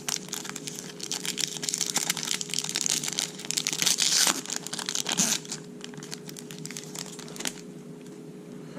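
Trading-card pack's foil wrapper crinkling and tearing as it is opened by hand, a dense crackle that dies away about seven and a half seconds in.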